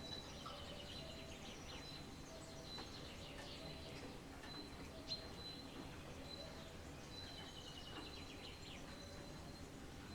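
Several wild birds singing at once, with repeated high chirps and descending runs of notes, over a steady low background hiss. A single sharp click sounds about halfway through.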